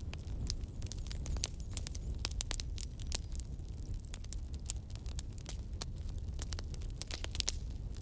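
Wood fire crackling: irregular sharp pops and snaps over a low steady rumble.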